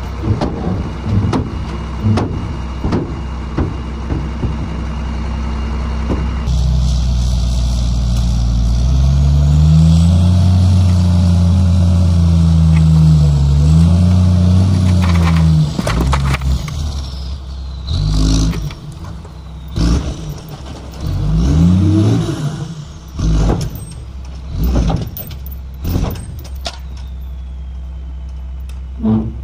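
Dump truck's diesel engine running while its hydraulic hoist tips the loaded bed to dump dirt. About a third of the way in the engine revs up and holds high for several seconds, then drops back to idle, followed by a string of thuds and knocks as the dirt slides out and falls onto the pile.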